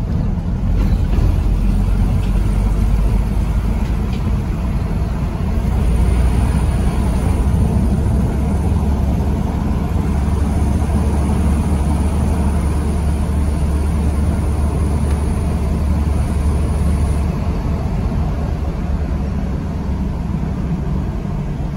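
Engine and tyre-on-road noise of a moving vehicle heard from inside its cabin: a steady low rumble.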